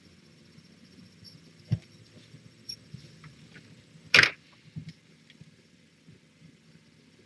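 Handling noises as a hand moves toys about on a blanketed pen floor: a soft knock, then a louder short scuffing knock about four seconds in and a couple of faint ones after it, over a low steady hum.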